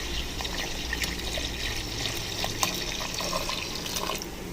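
Thin coconut milk being poured in a steady stream into a pot of melted jaggery, stopping about four seconds in.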